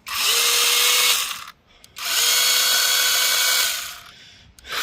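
21V battery mini chainsaw run free in short trigger bursts, not yet cutting and not yet oiled: the motor spins up quickly to a steady whine, runs for about a second and a half, then winds down. This happens twice, and a third burst starts near the end.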